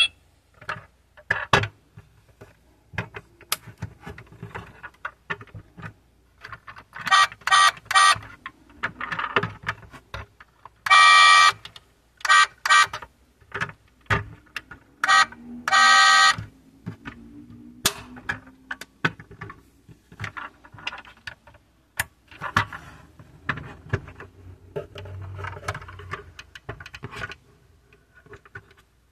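Clicks, taps and rattles of a metal 1:24 die-cast Dodge SRT Hellcat model car being handled and its doors worked, broken by several short electronic sound effects from the model's built-in sound module, the loudest a little before the middle.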